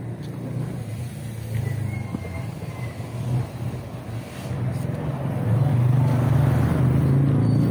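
Motorcycle tricycle engine running as it approaches and comes alongside, the engine hum growing clearly louder about five seconds in and staying loud, over general street traffic.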